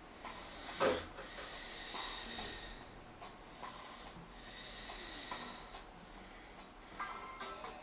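A sleeping man snoring, two long hissing breaths about three seconds apart, with one short sharp sound about a second in.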